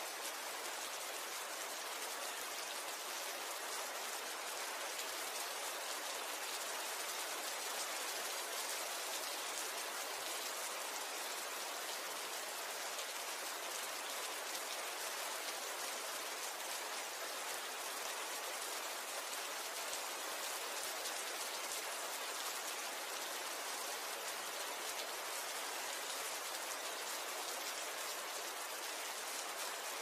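Steady rain falling, an even, unbroken sound of many drops, weighted toward the high end with little low rumble.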